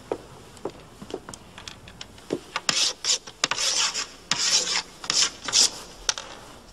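A few footsteps, then chalk scratching on a blackboard in a quick run of short strokes, as a word is written by hand.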